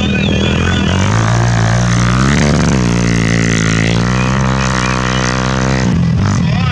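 Sport quad (ATV) engine racing: the revs rise about two seconds in, hold high and steady, then break off about six seconds in.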